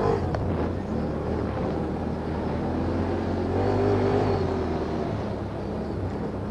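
ATV (quad bike) engines running, with one engine revving up and back down about halfway through.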